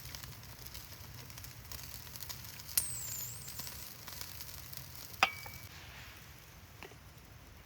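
Food sizzling as it cooks, with two sharp clicks about three and five seconds in, the second ringing briefly.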